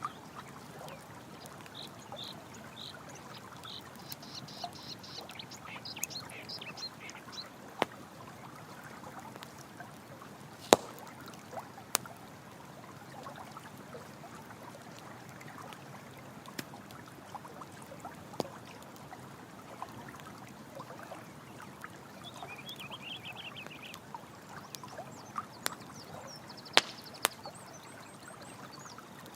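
Running water flowing steadily under the crackle of a campfire, with several sharp, loud pops from the burning wood. Bursts of rapid, high chirping calls from an animal come in the first few seconds and again near the end.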